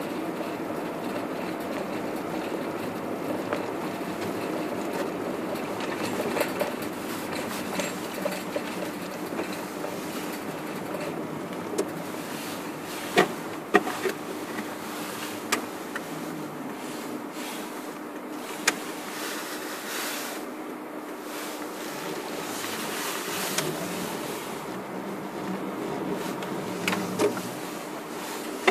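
Car driving slowly on a snow-packed road, heard from inside: steady engine and tyre noise with a constant low hum. Scattered sharp knocks and clicks, the loudest clustered about halfway through.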